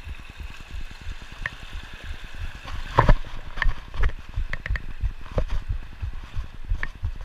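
Footsteps crunching and stones clacking on the loose rocks of a creek bed, several sharp clicks over the second half, over the steady rush of a mountain creek.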